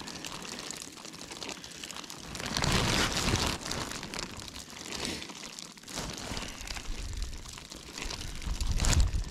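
Crinkling, crunching rustle, with wind gusting on the microphone about three seconds in and again near the end.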